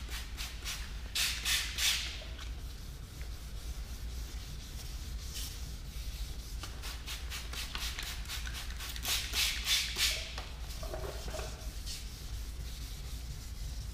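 1500-grit sandpaper wet-sanding a plastic taillight lens by hand, rubbed back and forth in quick strokes at about four a second, with pauses. There are louder clusters of strokes about a second in and again around nine to ten seconds.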